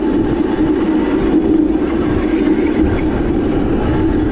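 Electric Crazy Cart riding along at speed: a steady hum from its motor and wheels, with gusty wind noise on the microphone.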